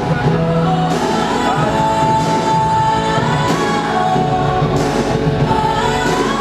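Loud music with a sung melody, a song played for a stage dance routine.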